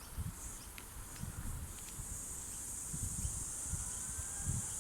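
A steady, high-pitched chorus of insects, growing louder about two seconds in, over scattered soft low thumps.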